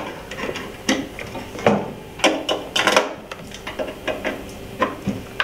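Quarter-inch jack plugs being pushed into the back of a MIDI foot controller and the cables handled: a string of separate sharp clicks and knocks.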